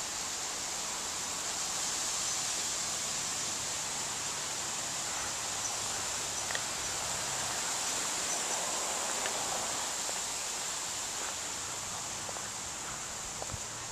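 Steady outdoor ambience: an even, high-pitched hiss with a faint low hum under it, and a few light ticks near the end.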